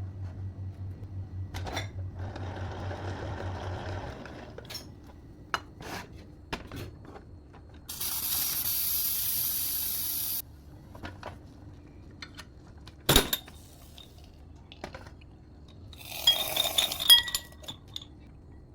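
Kitchenware being handled: a steady low hum that stops about four seconds in, scattered clicks and knocks, a hiss lasting about two seconds, one sharp clank, then a quick run of metal and glass clinks near the end.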